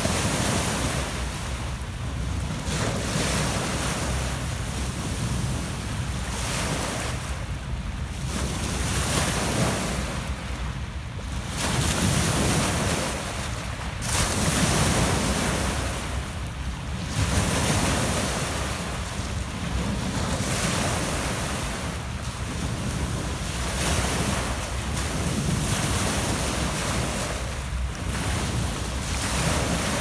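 Small Lake Ontario waves breaking and washing up over a pebble beach, swelling and easing every two to three seconds.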